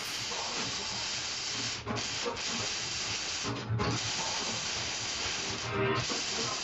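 A steady, loud hiss with a few brief breaks: about two seconds in, again around three and a half seconds, and near six seconds.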